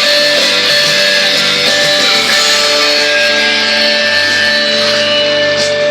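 Loud guitar music played back on a car audio system with a 12-inch subwoofer, with sustained notes over a steady bass.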